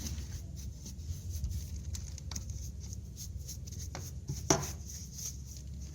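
Rapid scrubbing strokes rubbing a cleaning mix of dish soap, vinegar and petrol into the oily engine casing of a Vespa PX scooter, with a sharp knock about four and a half seconds in.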